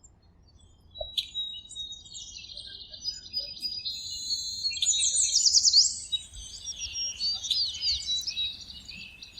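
Several birds chirping and singing at once, an overlapping mix of high trills and quick rising and falling whistles, busiest near the middle.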